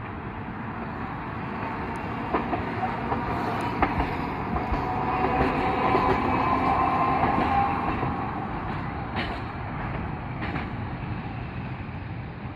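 Hiroshima Electric Railway streetcar 1901, the former Kyoto City tram 1916, running past. Its wheels click and knock over the rail joints. The sound swells to its loudest about six to seven seconds in, with a steady whine, then fades as the tram moves away.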